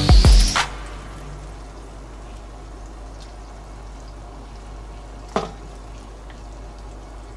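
Chicken pieces sizzling in butter in a frying pan, a steady hiss as a liquid mixture is poured over them from a bowl, with a single sharp knock about five seconds in.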